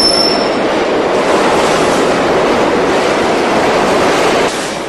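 Subway train running on the track with a loud, steady rushing rumble of wheels on rail, a brief high wheel squeal at the start, dropping off about four and a half seconds in.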